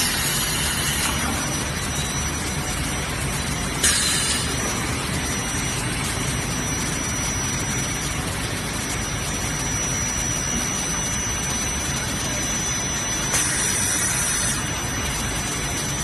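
Automatic cable coiling and tying machine running amid steady factory machinery noise. There is a short, sharp hiss about four seconds in and a longer one lasting about a second near the end.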